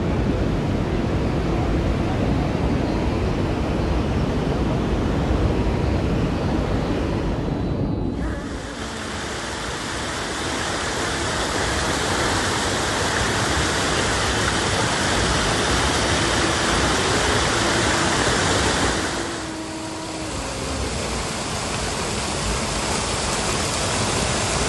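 Steady rush of a waterfall, a dense even roar of falling water with some wind on the microphone. About eight seconds in it changes abruptly to a brighter hiss, and it dips briefly near the twenty-second mark.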